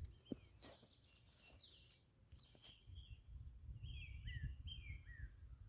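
Faint birdsong outdoors: a few short chirps and falling whistled notes, busiest in the second half, over a low rumble of wind or handling and a few light clicks.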